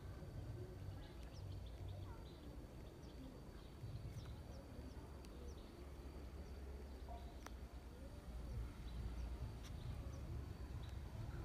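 Faint rural outdoor ambience: a steady low rumble with scattered short, high chirps of small birds and a couple of sharp clicks.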